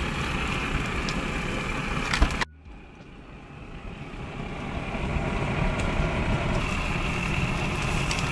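Whole trout and lemons sizzling on an outdoor grill, a steady hiss with faint crackles. It breaks off sharply about two and a half seconds in, then swells back up to the same hiss.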